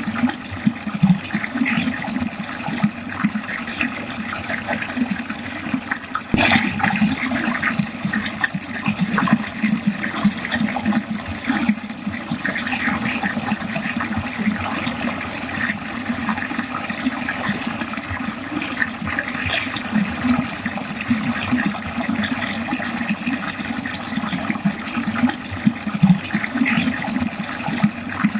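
Water running steadily down a drain, splashing and gurgling without a break, with a brief click about six seconds in.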